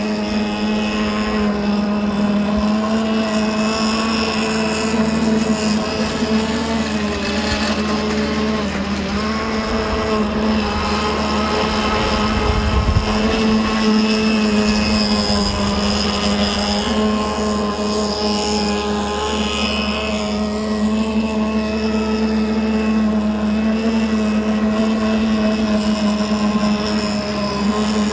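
Radio-controlled racing boat's CMB 26cc two-stroke petrol engine with tuned header and exhaust, running at speed with a steady high buzz whose pitch rises and falls a little as the boat runs across the water. A brief low rumble comes about halfway through.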